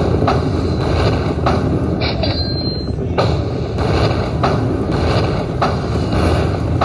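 Buffalo Link slot machine's hold-and-spin bonus sound: a steady low rumble with a drum-like beat about twice a second, and a brief high chime a little past two seconds in, as the bonus prize meter counts up.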